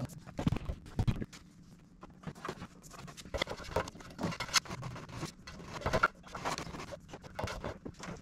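Irregular handling noises: scraping, rustling and light knocks spread unevenly throughout, as things are handled close to the microphone.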